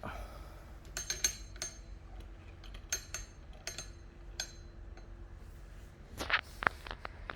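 A series of sharp clinks and taps from hard objects being handled, about six spread out over several seconds, then a few louder knocks near the end.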